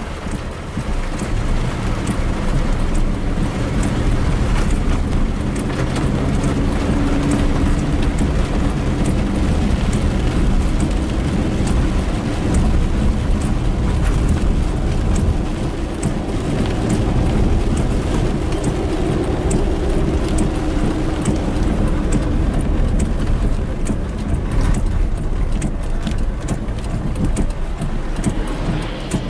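Heavy rain pelting a car's windshield and roof, many sharp drop impacts ticking, over the low steady rumble of the car driving on a wet road.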